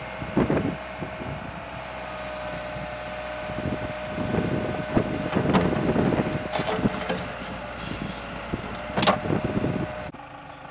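Backhoe running with a steady whine while its toothed bucket scrapes and scoops dry, hard soil in a trench, in several rough bursts. The machine sound cuts off abruptly near the end.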